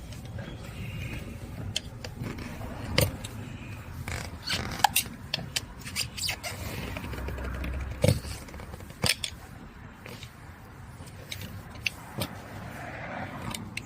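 A hand pry tool working a thick tyre off an electric tricycle's steel wheel rim: irregular metal clicks and knocks with scraping, the sharpest knocks about 3, 8 and 9 seconds in.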